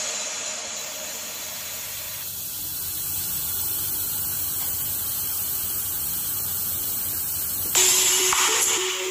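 Water running from a kitchen mixer tap into a metal sink, splashing over hands as they are rinsed under the stream. Music comes in suddenly near the end.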